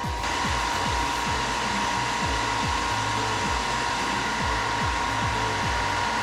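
A handheld electric power tool's motor running at a steady whine while stripping tough paint off a metal plate.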